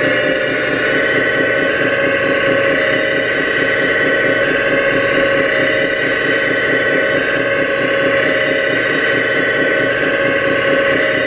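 Hydraulic pump of an RC Hitachi Zaxis 330 excavator running steadily under load as the excavator swings and moves its boom, a constant high whine over a fast buzz.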